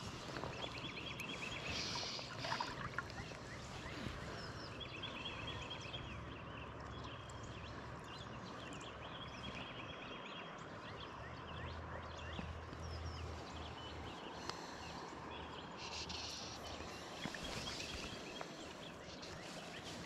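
Birds chirping and trilling in short runs of repeated notes, over a steady outdoor background hiss; a faint low hum comes in about halfway through.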